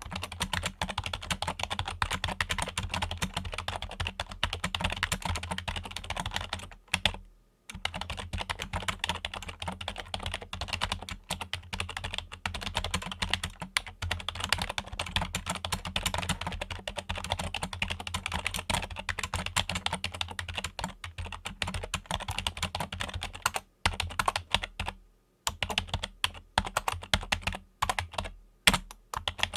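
Fingers typing fast on a Logitech computer keyboard: a dense, continuous patter of key clicks. It breaks off briefly about seven seconds in and again around twenty-five seconds, then turns to more scattered keystrokes near the end.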